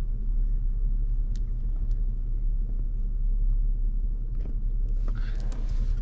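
Steady low rumble of a car heard from inside the cabin, with a few faint clicks.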